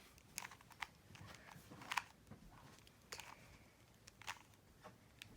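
Rubik's Cube layers being turned by hand: faint, irregular plastic clicks and clacks.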